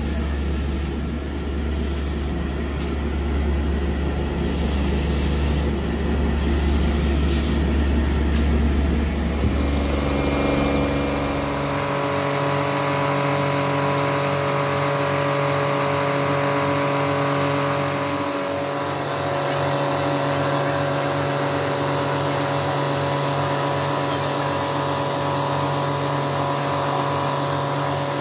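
Electric buffing-wheel motor running steadily while a sword's steel blade and guard are polished against the wheel. A deeper machine hum gives way to this steadier motor tone about twelve seconds in.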